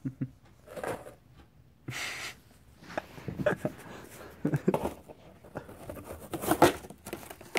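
Empty cardboard box knocking and scraping on carpet as a kitten wrestles under it, in irregular bursts with a longer scrape about two seconds in and a louder clatter near the end.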